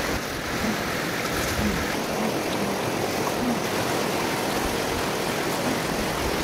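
Shallow rocky river rushing steadily over stones.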